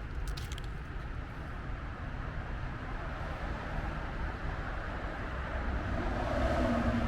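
Road traffic: a steady rumble of passing vehicles, growing louder near the end as one comes closer.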